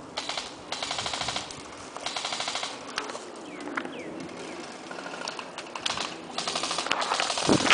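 Airsoft electric M4 rifles firing in full-auto bursts, each a fast, even rattle of shots: a short one at the start, two longer bursts in the first three seconds, then a pause and another long burst near the end.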